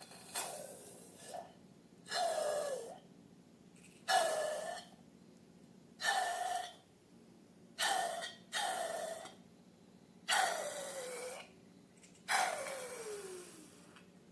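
Repeated airy squelches, roughly one every two seconds, each sliding down in pitch as it fades: air being squeezed out of slime.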